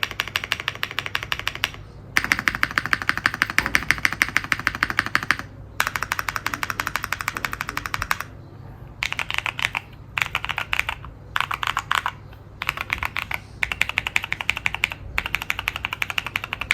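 Neo65 custom mechanical keyboard being typed on fast: rapid runs of key clacks in several bursts, broken by short pauses.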